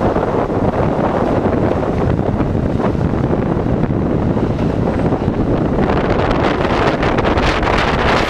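Wind rushing over the microphone of a camera mounted on the outside of a moving New York City subway train, mixed with the train's running noise. About six seconds in the rush turns harsher and hissier.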